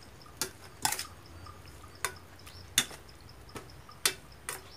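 Metal ladle clinking against a stainless steel mixing bowl while boiled banana blossom is tossed with its dressing: about seven sharp clinks at uneven intervals.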